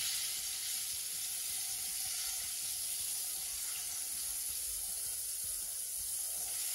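Coconut-flour-coated crayfish frying in a pot of hot oil: a steady, even sizzle.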